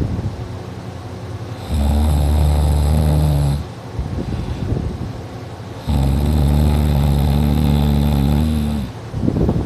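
Heavy snoring of a sleeper, deep and loud, "like a tractor": two long snores of about two seconds each, with quieter breathing between them and a short snort near the end.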